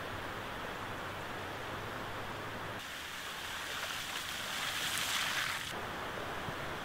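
Floodwater rushing, a steady noisy wash. About three seconds in it gives way to a car driving over a wet, muddy road, its tyres hissing louder as it nears. Near the end it switches back to rushing floodwater.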